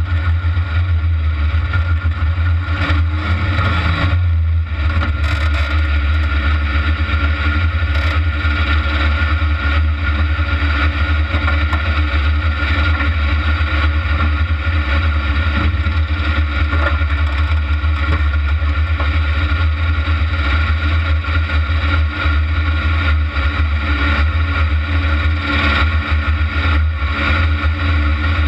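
Kart cross buggy's engine running steadily at low revs, heard from the camera mounted on the car.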